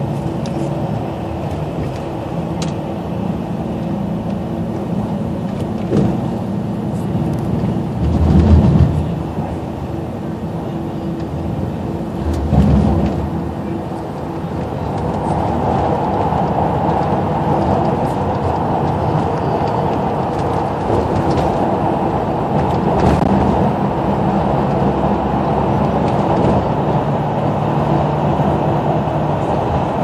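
Cabin noise inside a coach bus at highway speed: a steady engine and road drone, with two low thumps about eight and twelve seconds in.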